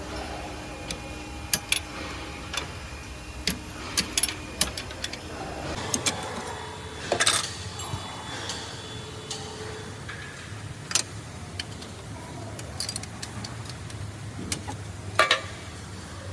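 Irregular sharp metallic clicks and clinks, a dozen or so spread unevenly, over a steady low hum. The background hum changes about six seconds in.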